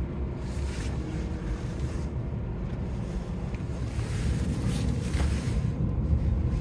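Iveco Stralis truck running down the road, a steady low engine and road rumble heard from inside the cab.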